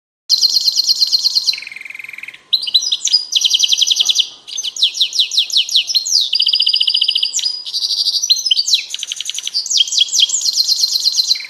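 A finch singing a long, fast song made of runs of rapid repeated trilled notes, each run giving way to a different one every second or so, with a lower, buzzier phrase about two seconds in.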